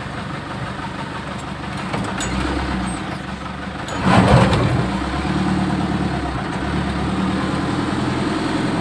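Six-wheeler mini dump truck's engine running as the truck is driven in traffic, its low note shifting as the throttle changes. A louder rushing sound comes about four seconds in and lasts about half a second.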